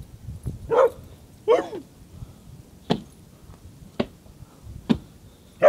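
A dog barking in short single barks, about one a second.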